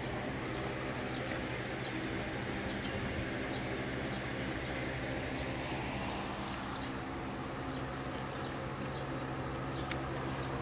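Steady low hum of a running electric motor with an even hiss over it, and faint scattered clicks.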